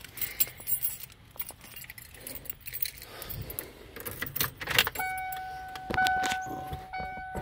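Keys jangling and clicking at the ignition of a Ford-chassis motorhome. From about five seconds in, a dashboard warning chime sounds, repeating about once a second.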